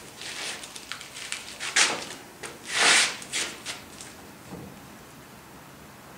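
A ratcheting torque wrench tightening a brake caliper bracket bolt, making several short rasping strokes, the loudest about three seconds in. The bolt is not yet at the 130 foot-pound setting, so the wrench has not clicked.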